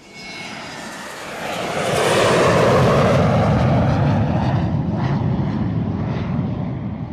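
Engine noise of an aircraft passing overhead: a broad rushing rumble that swells about two seconds in and then slowly fades.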